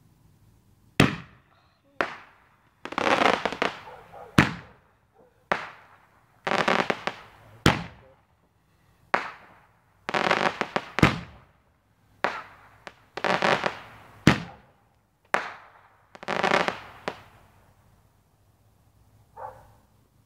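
Aerial fireworks going off in a quick series: sharp bangs mixed with stretches of dense crackling about a second long. They stop about three seconds before the end.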